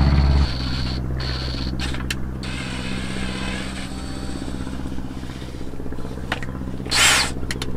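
Power drill running slowly and steadily as it bores out a stripped bolt hole in a 1994 Ford F-150's transmission case, the bit dipped in cutting oil. A louder low hum drops away about half a second in, and two short hisses come near the end.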